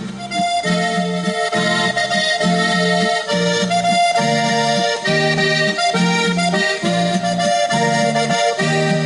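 Accordion music with a steady, repeating bass beat, starting suddenly at the very beginning.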